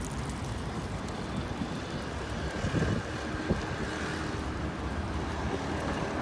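Steady outdoor city street noise: a low traffic rumble with wind buffeting the microphone.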